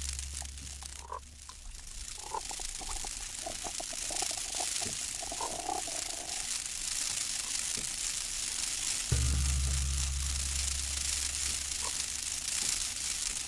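Sonic Kayak sonification output: short pitched grains cut from animal recordings play in a scattered run from about one to six seconds in. About nine seconds in, a low steady synthesised drone cuts in abruptly. Underneath is a steady high hiss of water and wind.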